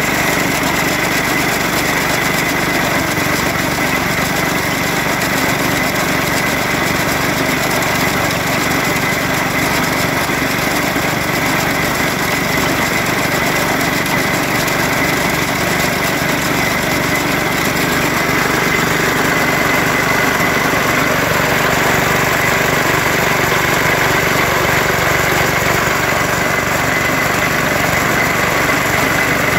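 Small stationary engine running steadily, driving a belt-and-pulley groundnut plucking machine; an even, unbroken machine sound with a steady whine, a little louder in the last third.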